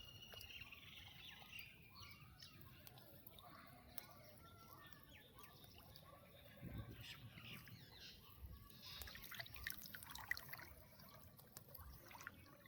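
Near silence: faint outdoor ambience of small water drips and trickles, with scattered light clicks and faint bird chirps.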